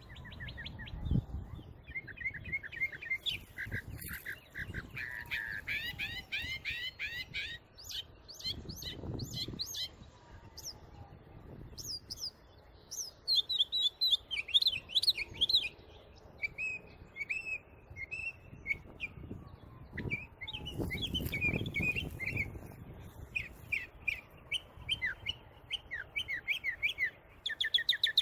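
Small birds chirping in quick runs of high notes, call after call, with a few low rumbles underneath.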